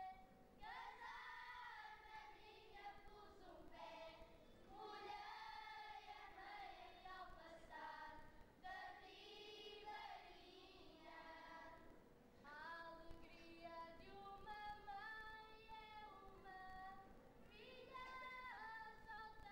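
A group of children singing a cappella in the cante alentejano style, faint, with long held notes that slide between pitches.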